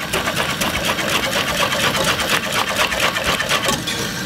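Wire balloon whisk beating cornmeal and oats porridge in a stainless steel pot, its wires rattling and scraping against the pot in a rapid, even rhythm.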